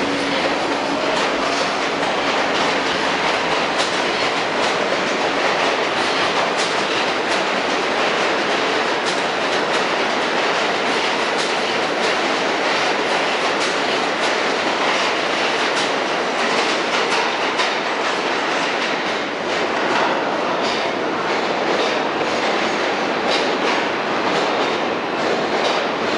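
R46 subway train with General Electric propulsion pulling out of the station and gathering speed, its motor whine rising at the very start. The rest is a steady loud rumble of the passing cars, with wheels clicking over rail joints, carrying on as the train draws away into the tunnel.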